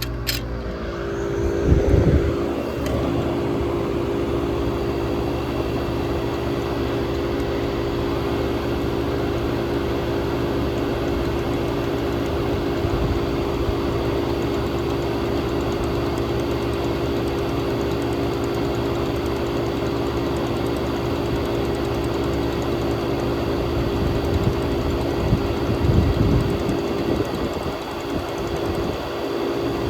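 1967 Chrysler Airtemp Imperial air conditioner running, its Tecumseh AJR 1727 compressor giving a steady, even hum.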